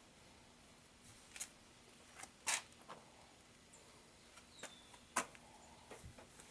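Faint handling sounds: a few scattered sharp clicks and crackles, the loudest about two and a half seconds in and again about five seconds in.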